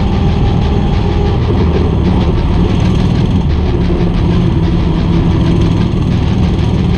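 Coleman CT200U-EX mini bike's 196cc single-cylinder four-stroke engine running steadily while the bike rides along.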